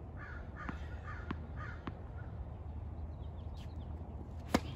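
Tennis ball bounced three times on a hard court, about 0.6 s apart, then a single sharp racket-on-ball hit from the serve near the end, the loudest sound. A bird calls twice in the background.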